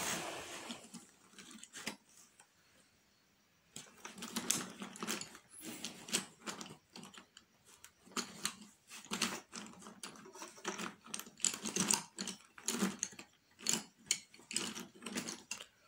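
A soft 10B graphite pencil shading on paper: quick scratchy strokes in short, rapid runs, beginning about four seconds in.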